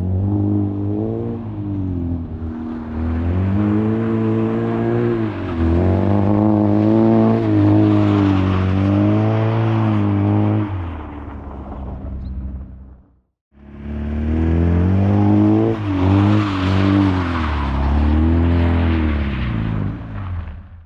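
Old sedan's engine revving hard while it drifts on snow, the pitch rising and falling again and again. The sound cuts out abruptly about two-thirds of the way through, then the revving resumes.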